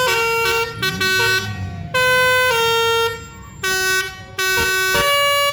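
A bus's telolet horn, a multi-tone musical air horn, playing a quick melody of stepped notes in loud bursts with short breaks between them, cutting off abruptly at the end.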